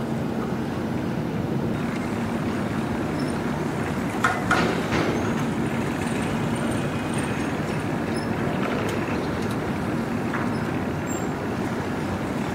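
Steady diesel engine drone from harbour vessels, with a faint steady hum under it. A few short knocks come about four to five seconds in, and another near the end.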